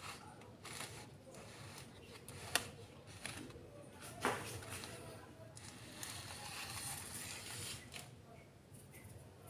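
Faint handling sounds of a plastic plant pot being touched and moved on a table: a couple of sharp clicks, then a short scraping hiss as it is slid back near the end.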